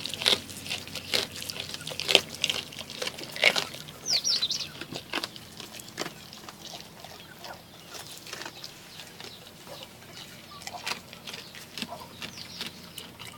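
A goat chewing raw fish, irregular crunching clicks that are densest in the first few seconds. A few high bird chirps come in about four seconds in and again near the end.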